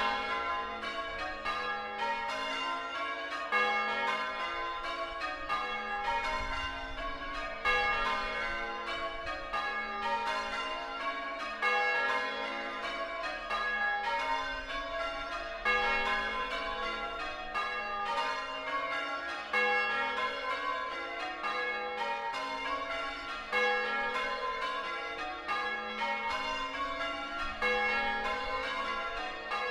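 A ring of six church bells in A-flat (tenor about 8 cwt) being rung full circle, the bells striking one after another in a continuous run, with a louder stroke about every four seconds.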